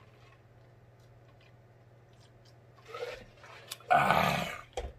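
A man's loud, breathy 'ahh' of an exhale after a drink, about four seconds in, preceded by a few faint mouth clicks and smacks.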